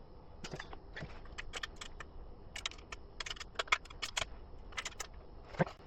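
A run of quick, irregular clicks, like typing: fingertips tapping on the Echo Show 21's touchscreen, entering text on its on-screen keyboard.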